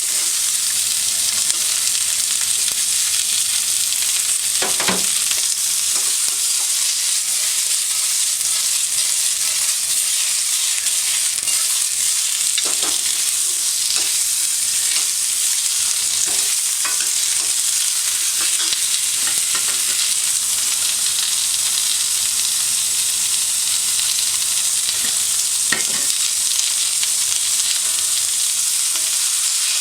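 Food sizzling steadily in hot oil in a hand-hammered iron wok while it is stir-fried, with a few light scrapes or clinks of the utensil against the pan.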